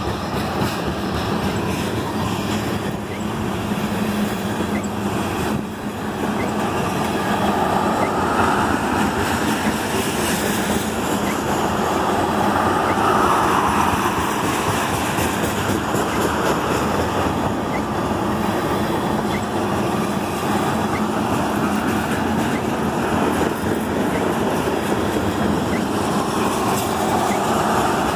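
Canadian Pacific oil train of loaded tank cars rolling past on the rails: a steady noise of steel wheels on track, with faint evenly spaced clicks.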